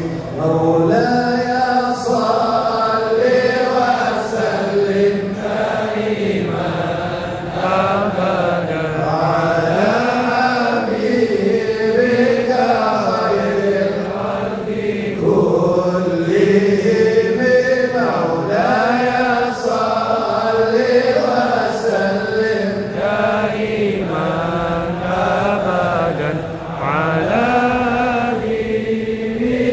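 A man's voice chanting an Arabic devotional hymn into a microphone, amplified over a PA, with long ornamented lines that rise and fall in pitch. No instruments are heard.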